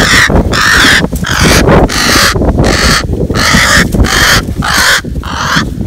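An injured crow cawing harshly over and over in quick succession, a few calls a second, as it is handled: alarm or distress calls from a bird with a broken wing.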